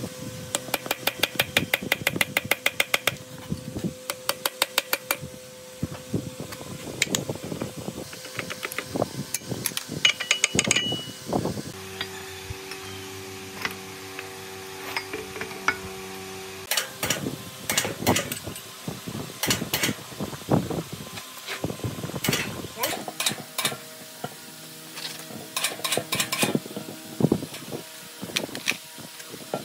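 Metal tool noises during work on a diesel engine: a fast run of clicks, about ten a second, near the start, then scattered taps and knocks on metal, with a steady hum for a few seconds in the middle.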